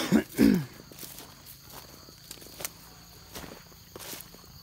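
Footsteps and rustling through dry vegetation, with a short loud burst of noise in the first second, then scattered soft crackles over a faint insect drone.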